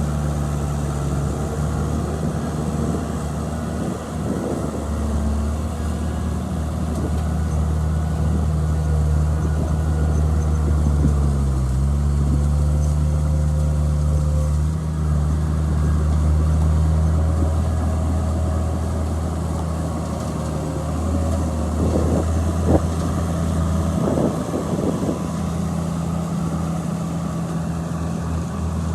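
Bulldozer's diesel engine running steadily under work, its pitch dipping briefly about twelve seconds in as it takes load, with a few short knocks near the end.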